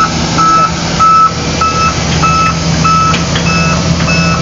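Reversing alarm of a heavy construction vehicle beeping evenly, a little under two beeps a second, over its diesel engine running steadily.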